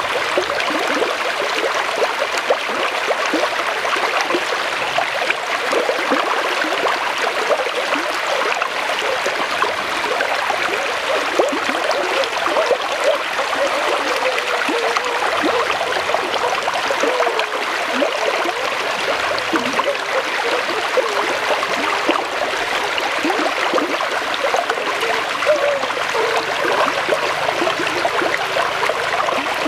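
Shallow forest stream flowing over rocks: a steady babble of running water full of small gurgles.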